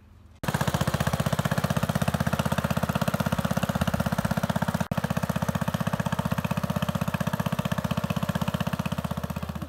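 1962 Bolens Ride-A-Matic garden tractor engine running steadily under way with a fast, even firing beat while it tows a loaded spreader. It starts abruptly about half a second in and breaks off for an instant about halfway through.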